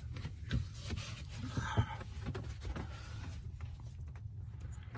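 Rustling and a few light clicks and knocks from hands working a fuel line quick-connector wrapped in a rag, over a steady low rumble.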